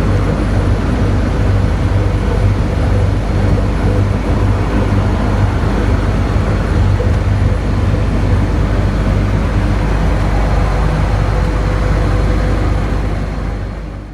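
Heavy diesel truck engine running with a steady low rumble, fading out near the end.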